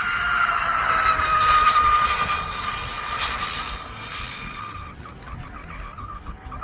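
Scorpion Rigger RC speed boat's single motor whining at full speed as the boat passes. The whine is loudest about two seconds in and drops slightly in pitch, then goes fainter as the boat runs off.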